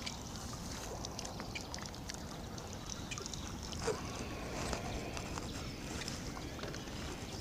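Water splashing and dripping as a landing net holding a small carp is lifted out of the water, with a scatter of small ticks and one louder splash or knock about four seconds in.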